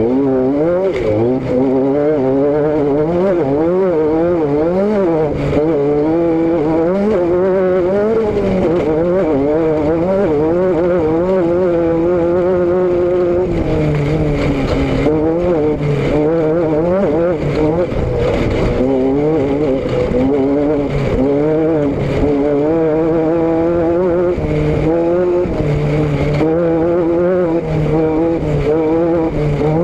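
A vehicle engine runs loudly as it is driven, its note constantly rising and falling with the throttle, with wind rushing over the microphone.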